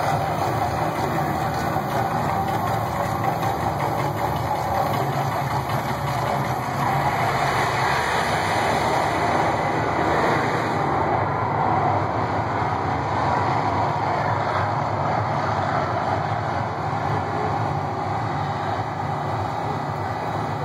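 Steady, loud rumbling roar of a man-made volcano fire show as gas flames erupt from the rock peak and across the lagoon, easing slightly near the end.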